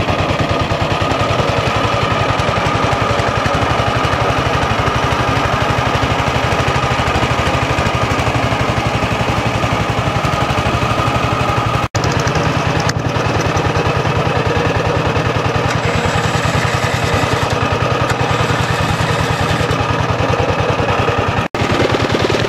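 Boat engine running steadily with a fast, even pulse, driving the tow boat and its lashed-on ghost-lure fishing boat along the river. The sound cuts out for an instant twice.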